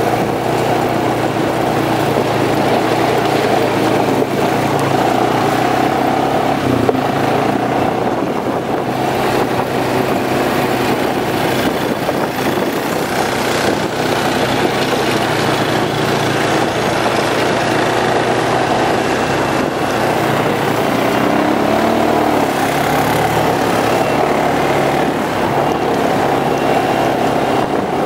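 Quad (ATV) engine running steadily at close range, one unbroken drone with no let-up.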